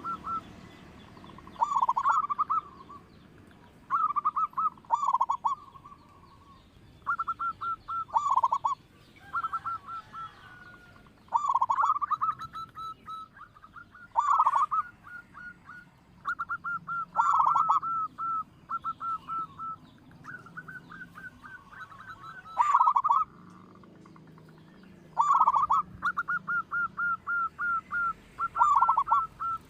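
Zebra dove (perkutut) singing: short phrases of quick staccato coos, repeated every two to three seconds.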